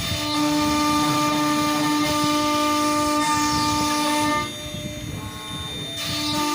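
A CNC router cutting wood, its motors giving a steady multi-tone whine over the noise of the cut. The whine drops and changes pitch about four and a half seconds in, then returns near the end as the machine changes its move.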